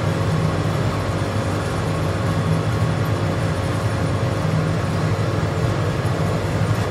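L-type heat shrink packaging machine running steadily, a continuous low mechanical hum and whoosh with a faint steady tone above it.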